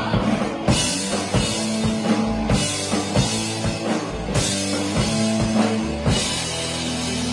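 Live punk rock band playing without vocals: distorted electric guitars and bass over a drum kit, with a cymbal crash about every two seconds. About six seconds in the drumming stops and the band's last chord rings out as the song ends.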